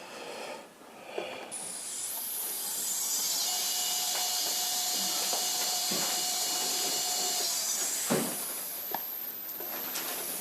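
Sky-Watcher EQM-35 mount's declination motor slewing: a high whine that climbs in pitch as it speeds up, then runs steady. It slows and picks up again with a click about eight seconds in, and starts to fall near the end.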